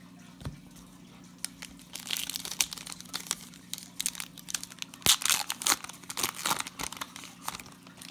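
A 2018 Prestige football card pack's wrapper being torn open and crinkled by hand, crackling in bursts that start about two seconds in and are loudest past the middle.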